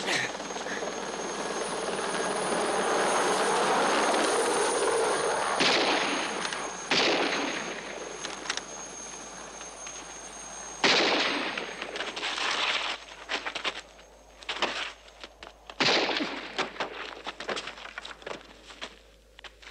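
A steady rushing hiss for the first few seconds, then four sharp pistol shots spread over about ten seconds, each trailing off, with smaller knocks and scuffs between them toward the end.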